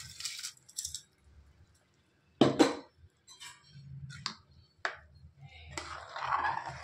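Soaked rice tipped into boiling stock in a pressure cooker pot, then a ladle knocking against the pot four times as the rice is stirred in, the first knock the loudest. Near the end the stirring and bubbling give a short rough rush.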